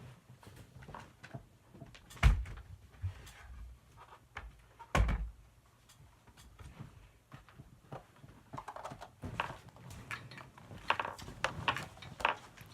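Two heavy thumps about three seconds apart, then a run of light clicks and rustling, like objects being handled and set down.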